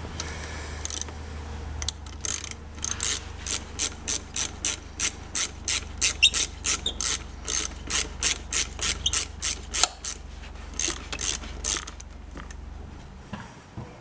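Socket ratchet wrench clicking as it turns a bolt on a motorcycle's rear brake caliper. The clicks come in quick, even back-swings, about three a second, starting about two seconds in and stopping a couple of seconds before the end.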